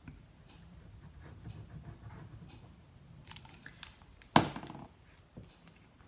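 Quiet handling of paper strips and a plastic liquid-glue bottle, with faint rustles and small ticks. About four seconds in there is one sharp knock as the glue bottle is set down on the wooden tabletop.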